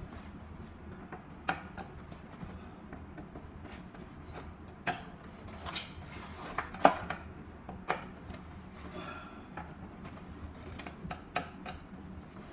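Phillips screwdriver driving screws into a ceiling fan's metal blade holder, with irregular small clicks and clinks of metal and plastic parts being handled, the sharpest about seven seconds in.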